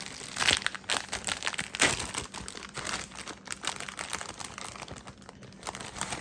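Plastic packaging of sliced honey ham deli meat crinkling and crackling as it is handled, with louder crackles about half a second and two seconds in.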